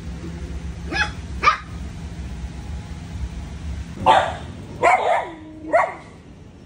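A dog barking: two short barks about a second in, then three louder barks in the second half.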